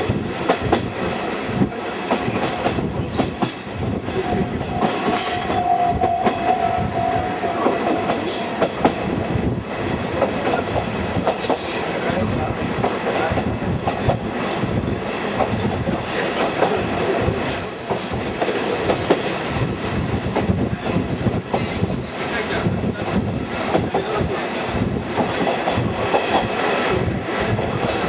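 KiHa 48 diesel railcar heard from its open-windowed trolley car while running, its wheels clicking over the rail joints over a steady rumble. A steady high tone sounds for a few seconds about four seconds in.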